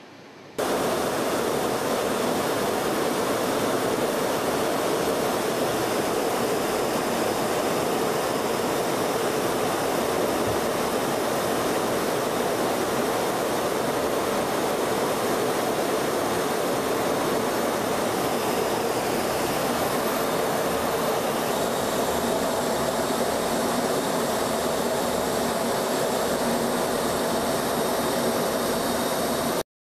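Jet aircraft in flight: a steady, even rush of jet engine noise with faint high whistling tones. It starts suddenly about half a second in and cuts off abruptly at the end.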